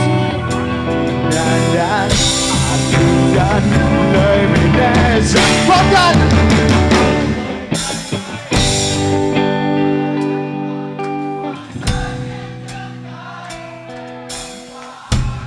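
Live rock band with electric guitars, bass and drum kit playing loud through a stage PA. About eight seconds in the full playing stops, and the band holds sustained chords punctuated by three big accented hits, with the chords ringing out between them.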